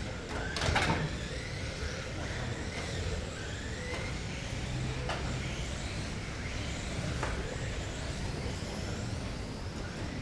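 1/12-scale GT12 electric radio-control cars racing, their motors whining in rising pitch again and again as they accelerate. Sharp knocks come through the whine, the loudest about half a second in, with others near 3, 4, 5 and 7 seconds.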